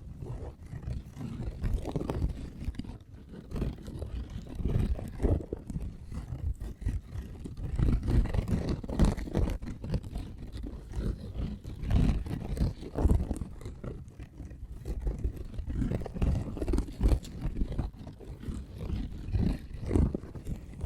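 Fingertips scratching and tapping right at the microphone, a dense run of many short, irregular rubbing strokes with a deep, close-up rumble.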